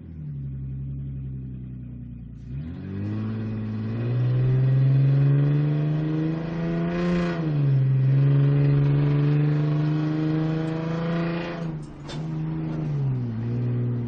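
Sports car engine accelerating: after a low, steady opening it climbs in pitch, drops sharply about seven seconds in, then holds steady. It falls back and rises briefly again near the end.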